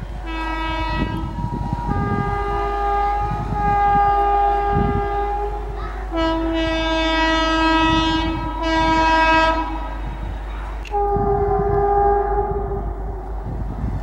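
WAP4 electric locomotive's air horn honking in long, loud blasts, alternating between a lower and a higher note, as the train approaches at speed.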